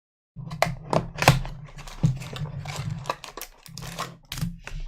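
Trading cards and their box being handled on a table: a quick run of sharp clicks and taps with rustling, over a low hum.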